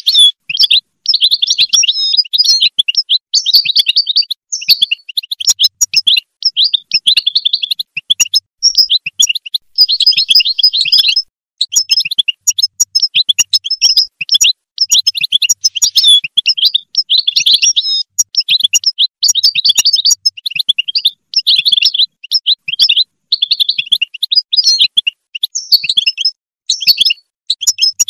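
European goldfinch singing: long runs of fast, high-pitched twittering phrases, with only brief breaks.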